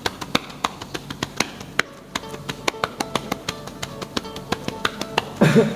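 Cupped hands clapping rhythmically on a patient's back for chest physiotherapy (chest percussion), about four to five claps a second, with guitar-like musical tones underneath.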